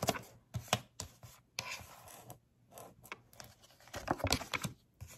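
A deck of oracle cards being shuffled and handled: an irregular run of short crisp flicks and rustles of card against card, the longest stretches about two seconds in and again near the end.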